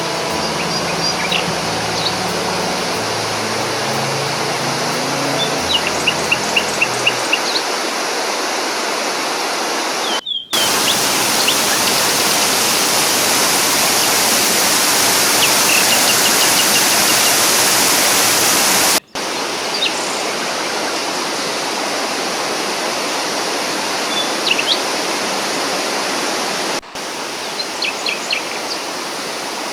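Waterfall rushing steadily, with small birds chirping now and then over it. The rush breaks off for a moment three times and is louder and brighter in the middle stretch.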